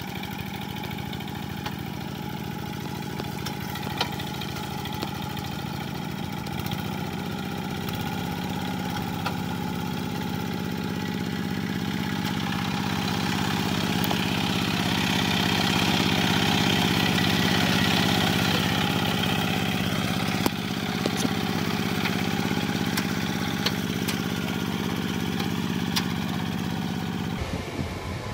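Kubota walking tractor's single-cylinder diesel engine running steadily under load as it hauls its cage wheel through paddy mud, with a few sharp clicks and knocks. The engine note grows somewhat louder and brighter in the middle. Near the end it gives way abruptly to a different engine sound.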